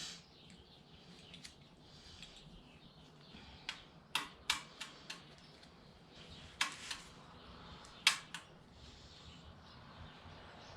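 Light clicks and taps of small carburetor parts being handled and fitted, about a dozen scattered sharp ticks, bunched in little runs near the middle.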